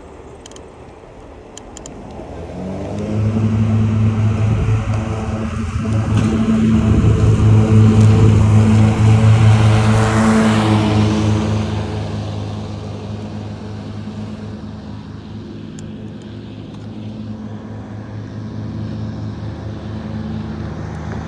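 A motor vehicle engine running with a steady low hum that sets in a few seconds in. About ten seconds in, a rush of road noise swells and fades as traffic passes.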